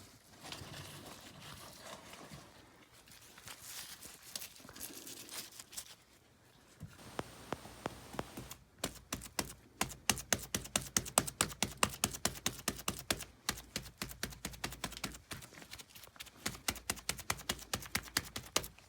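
Hand tools working rough lime plaster on a wall: a few seconds of soft scraping, then a long run of rapid sharp clicks and taps, several a second.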